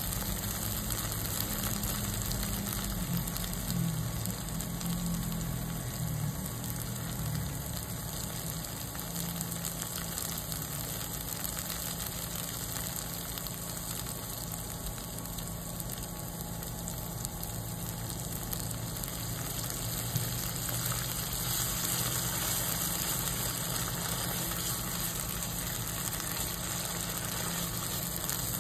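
Red curry paste frying in oil in a pan, sizzling steadily as it is stirred.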